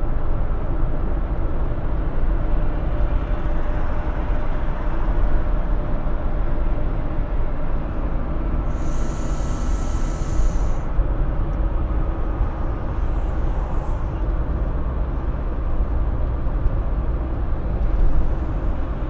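Steady engine and road noise inside the cabin of a Fiat Fiorino van cruising at highway speed, heavy in the low end. About nine seconds in, a brief high hiss lasts around two seconds.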